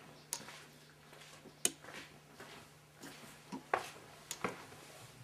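A few faint, irregular clicks and taps over a low steady hum, the handling and footstep noise of a handheld camera being carried while someone walks indoors.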